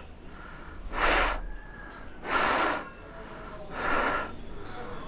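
A person breathing heavily through a full-face motorcycle helmet with the visor closed: three loud breaths about a second and a half apart.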